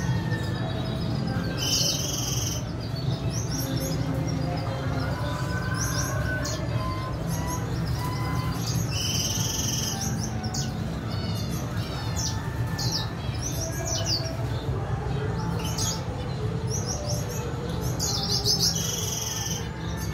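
Red siskins chirping and twittering: quick, high chirps throughout, with a harsher buzzy call of about a second heard three times (near the start, in the middle and near the end), over a steady low hum.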